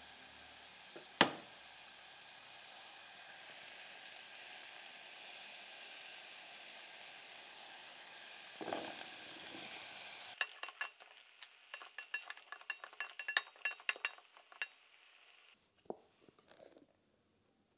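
Chopped mushrooms sizzling in a stainless-steel saucepan, with a sharp knock about a second in. Near the middle sweet corn kernels are tipped in, then a spoon stirs, clinking against the steel pan for about five seconds before the sound drops away.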